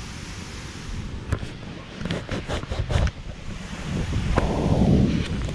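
Wind buffeting the microphone over the steady rush of a waterfall. A string of sharp knocks comes in the middle, and a loud low gust follows near the end.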